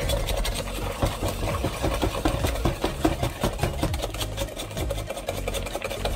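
Wire whisk beating egg yolks and sugar by hand in a glass bowl: a fast, steady clatter of the wires against the glass. The mixture is being beaten until it turns pale.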